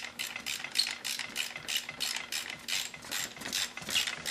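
Hand socket ratchet wrench clicking steadily as it turns a bolt on a snowmobile rear skid rail, an even run of about four or five clicks a second.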